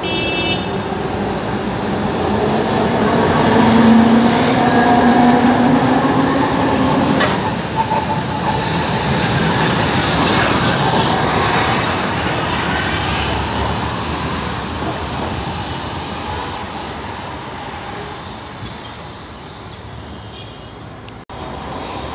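Alexandria Raml electric tram passing by on its rails: the rumble of wheels and running gear, with a low hum, grows louder to a peak about four to six seconds in, then fades away as it moves off. A higher squeal from the wheels comes in around ten seconds in.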